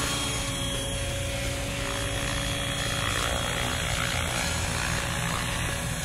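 Unmanned model helicopter running with its rotors at speed as it lifts off and hovers low, a steady sound that holds one pitch.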